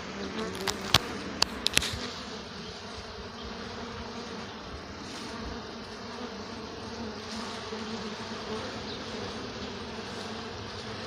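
Mass of honeybees buzzing steadily at a hive entrance where robber bees are fighting the colony's guards. A few sharp clicks sound in the first two seconds.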